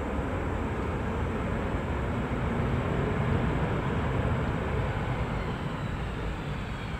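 QantasLink Boeing 717-200 on its landing rollout, the noise of its two rear-mounted turbofans swelling about three seconds in and then easing, with a faint falling whine near the end.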